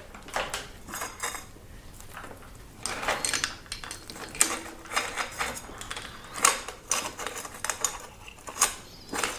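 Bicycle chain rattling and clinking in irregular bursts as it is pulled by hand onto the chainrings of an e-bike crankset, links knocking against the teeth and each other.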